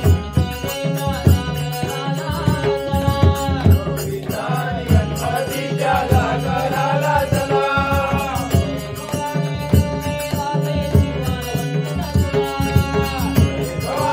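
Marathi devotional bhajan: a group of men singing to a harmonium's held chords, hand-played two-headed barrel drums and small hand cymbals, with a steady drum rhythm throughout.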